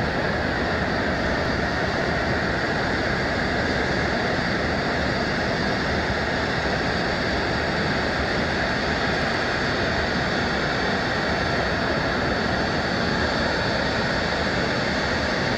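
Jet aircraft in flight: a steady, unbroken rush of engine noise with a faint thin high whine.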